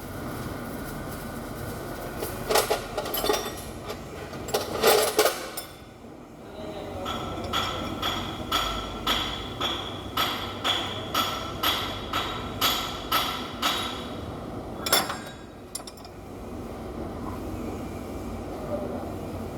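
Metal being struck with a hammer: a few scattered clanks, then an even run of ringing metal-on-metal taps about two a second, and one louder knock near the end.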